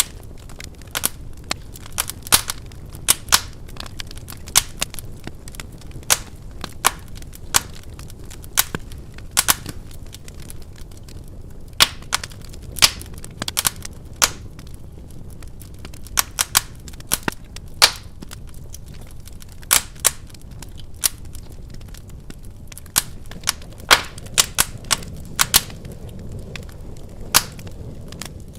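Wood fire crackling in a fireplace: irregular sharp pops and snaps, one or two a second, some much louder than others, over a steady low rush of the burning fire.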